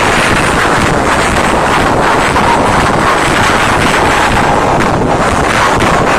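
Concert crowd screaming steadily, the noise so loud that it overloads a phone's microphone into a harsh, distorted roar.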